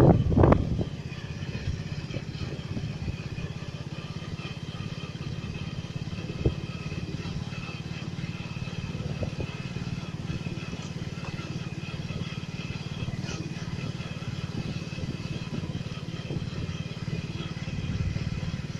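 Steady low engine drone of a road vehicle heard from on board as it travels along the road, with a burst of louder bumping noise in the first second and a single sharp knock about six seconds in.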